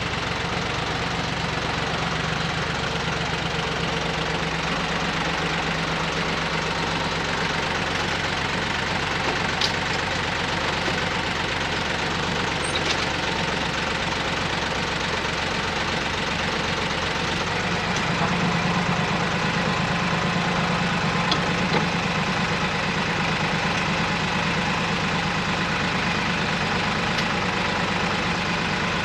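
Ford 1710 tractor's three-cylinder diesel engine idling steadily. It runs a little louder from about two-thirds of the way in.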